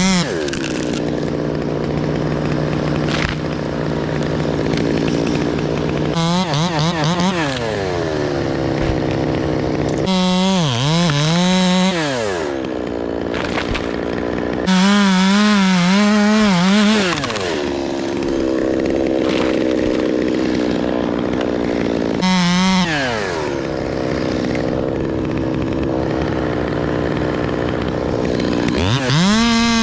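Chainsaw engine running throughout, revved to full speed about five times and dropping back between, its pitch wavering while at speed as it works through wood.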